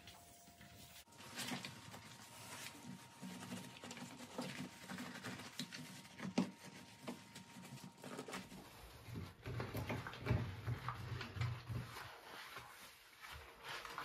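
A soapy sponge scrubbing a glass gas hob and a cloth wiping around it, making quick, irregular rubbing strokes.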